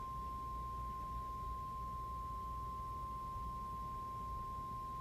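Weather-radio warning alarm tone: one steady, unbroken pure tone near 1050 Hz. It is the attention signal that a weather warning message is about to follow.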